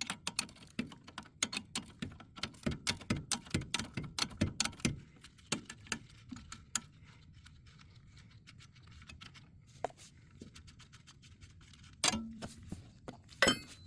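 Hand ratchet clicking in quick irregular runs as a bolt on the steering knuckle is worked loose. The clicks thin out about halfway, and a couple of sharp metal knocks come near the end.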